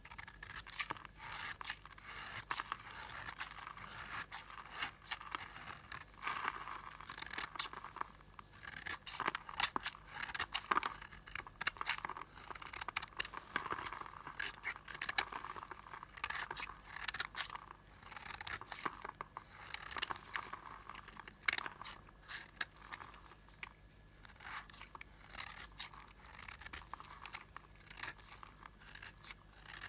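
A blade cutting and scraping through a bar of old, hard soap, giving a steady run of crisp crunching and scraping strokes with sharp little cracks.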